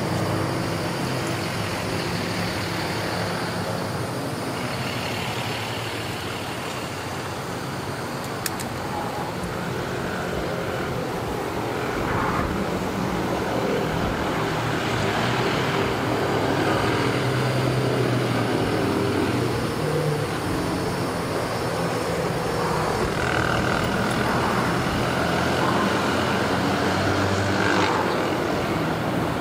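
Steady hum of running engines, with faint held low tones that swell and fade, and one sharp click about eight and a half seconds in.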